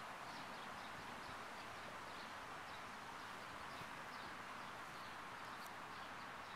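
Quiet outdoor ambience: a steady hiss with faint, short bird chirps repeating every half second or so.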